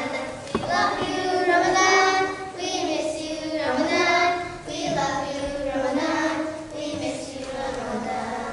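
A group of children singing together in unison, their voices holding long notes.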